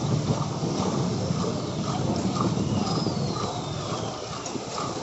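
Street traffic with vehicle engines running, over the slosh of a steel ladle scooping liquid from a steel pot and pouring it into a plastic bag.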